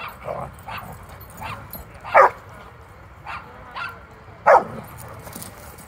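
Dog play-barking during rough play-wrestling: a run of short, sharp barks and yips, two of them much louder about two seconds in and again about four and a half seconds in.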